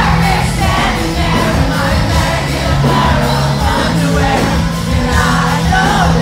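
Loud live pop-rock music with a singing voice over a steady bass line, heard from among a concert crowd.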